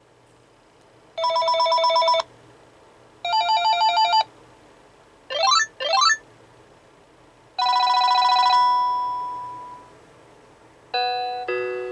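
Panasonic KX-TGA680B DECT 6.0 cordless handset previewing its built-in electronic ringer tones one after another: a warbling trill ring twice, then two quick rising sweeps, then a trill that rings out and fades. Near the end two chime notes ring out, the second lower.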